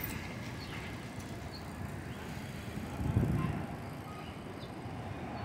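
City street ambience: a steady wash of traffic noise from cars on the avenue, with a brief louder low rumble about three seconds in.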